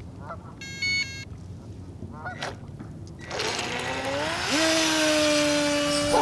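A short electronic beep about a second in, then the Force1 Velocity RC boat's electric motor spins up about three seconds in: a whine that rises in pitch and then holds steady over the hiss of spray as the boat speeds off across the water.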